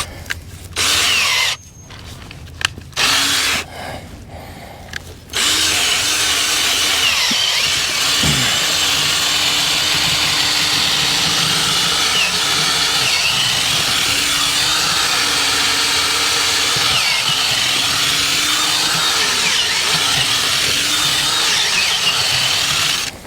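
Half-inch drill turning an auger bit into the ground to bore a fence-post hole. It runs in a few short bursts at first, then about five seconds in it runs steadily, drilling down to the bit's full length.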